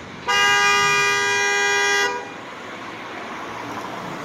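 Car horn sounding one loud, steady blast of about two seconds, which starts sharply and cuts off; after it, only steady outdoor background noise.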